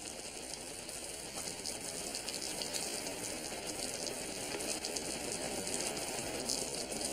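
Truck engine running, a steady noise heard from inside the cab that grows gradually a little louder.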